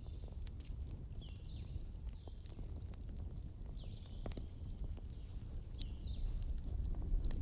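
Wood fire burning with a steady low rumble and scattered sharp crackles and pops. Several short, high, falling chirps sound over it.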